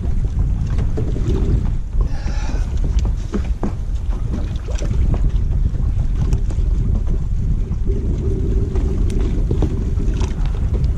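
Wind buffeting the camera microphone, a steady low rumble, with small scattered clicks and knocks from hands working a bait fish onto a hook and rig.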